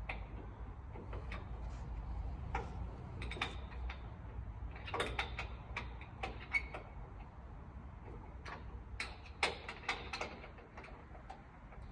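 Irregular light clicks and knocks of hardware being handled as a leg is fitted and bolted onto a Steinway Model M grand piano, over a steady low hum.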